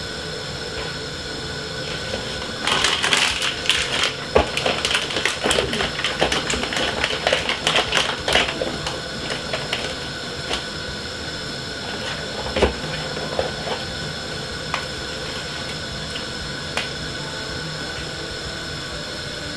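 Off-screen handling of spice containers while seasoning: a run of rapid crackling clicks for about six seconds, then a few single clicks, over a steady background hum.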